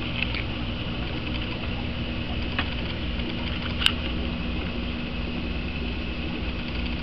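Aquarium air pump and bubbler running: a steady low hum with a hiss of bubbling water, and one sharp click about four seconds in.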